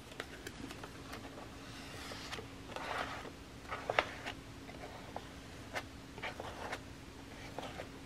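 Faint rubbing and scraping of a hand-held piece of material dragging black paint across a paper journal page, with a few light clicks and taps, the sharpest about four seconds in. A steady low hum runs underneath.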